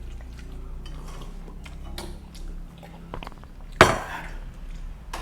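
Cutlery clinking and scraping against a plate during a meal, with scattered light clicks and one sharp, louder clink near the end.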